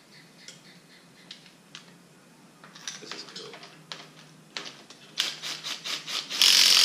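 Hand tools working at the top of an RB20DET engine on a stand: scattered clicks and scraping of metal, then a quick run of sharp clicks about five a second and a short, loud burst of noise near the end.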